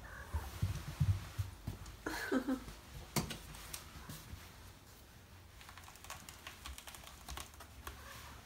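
A cat running about on a wooden floor: paws thudding and claws clicking and tapping on the boards, with a short meow a little after two seconds in.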